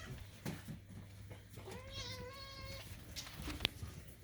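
A kitten gives one drawn-out, level meow about halfway through, a cat asking for food. A few faint clicks and one sharp tick near the end accompany it.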